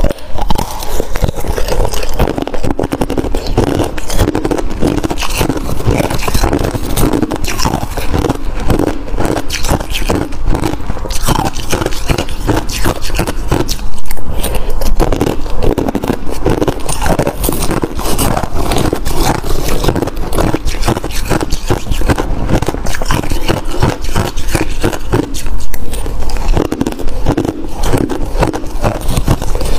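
Close-miked crunching and chewing of mouthfuls of freezer frost, mixed with a metal spoon scraping through the frost in the bowl.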